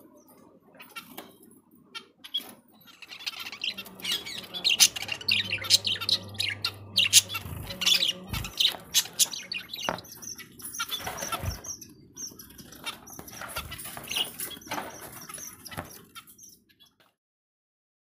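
Budgerigar chicks chirping and squawking in quick, scratchy calls, thickest in the middle, then stopping abruptly about a second before the end.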